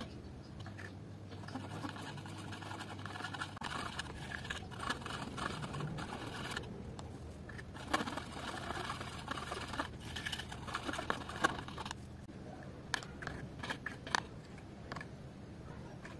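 Metal palette knife stirring and scraping thick paint in a plastic palette well, an uneven scraping broken by a few sharp clicks.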